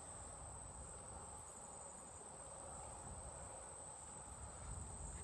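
A steady, high-pitched insect trill, like crickets, running unbroken over faint low background rumble.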